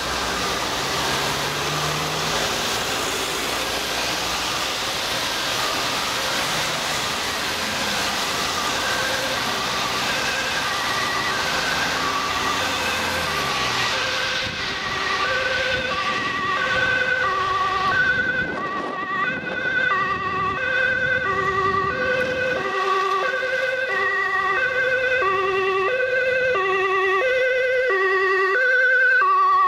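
Ambulance two-tone siren, alternating between a high and a low note, faint under heavy road-traffic noise at first, then growing clearer and louder over the second half as the ambulance approaches.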